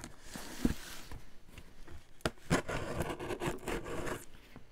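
A cardboard box being cut open with a utility knife: the blade scrapes and rasps along the taped seam, with scattered light clicks and rustles of cardboard.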